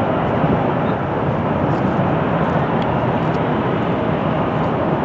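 Boeing 787-9 airliner's GEnx jet engines running with a steady, even noise as it rolls out down the runway after touchdown.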